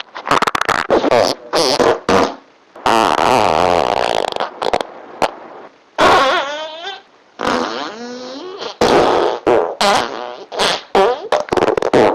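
Fart sounds edited back to back in quick succession: many short sharp blasts and a few longer, rippling ones lasting a second or two whose pitch wavers up and down.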